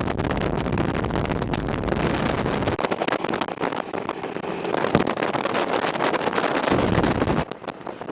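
Wind buffeting the microphone with the running noise of a moving vehicle; the low rumble drops away about three seconds in and again near the end.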